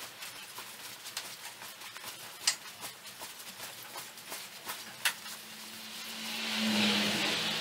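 Hand tap being turned with a bar tap wrench, cutting a thread in a small metal block held in a bench vise: faint scraping and ticking, with two sharp metallic clicks. Near the end a hiss swells up with a low hum under it.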